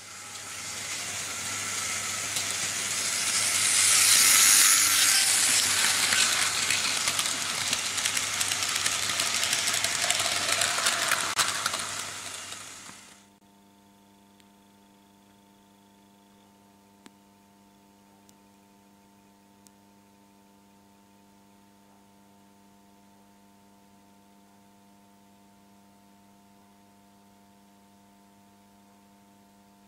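Loud hiss of escaping steam, in the manner of a steam locomotive blowing off, swelling over the first few seconds and cutting off suddenly about thirteen seconds in. After it, only a faint steady electrical hum with a few small clicks.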